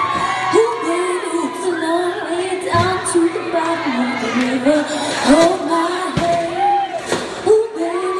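A woman singing lead live into a microphone through a PA, with a few sharp percussive hits cutting in.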